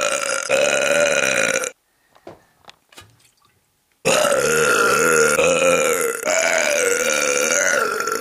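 Long, drawn-out belches. One carries on for the first couple of seconds, then stops. After a pause of about two seconds with only a few faint clicks, another long belch starts and runs on, shifting in pitch partway through.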